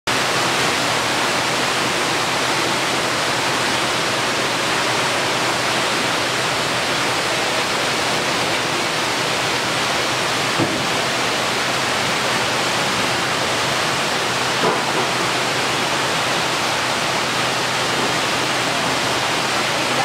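Waterfall: a wide sheet of water pouring over a low wall into a shallow pool, a steady rushing hiss at a constant level.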